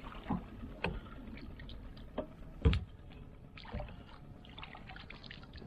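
Scattered sharp knocks and clicks of gear being handled aboard a plastic fishing kayak, over a low steady background. The loudest knock comes about two and a half seconds in.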